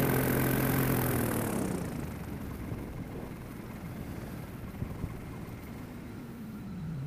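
Paramotor engine at low throttle on landing approach, its note falling and fading about two seconds in as it idles down, with wind rushing over the microphone fading with it. Near the end a brief engine note rises and drops in pitch again.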